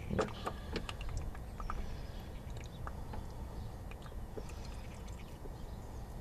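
Antifreeze coolant dripping and trickling from a partly undone cooling-system drain, heard as irregular small drips and splashes.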